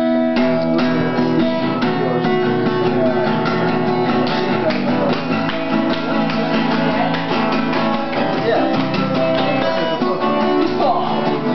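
Acoustic guitar strummed in steady chords, an instrumental break between sung verses of the song.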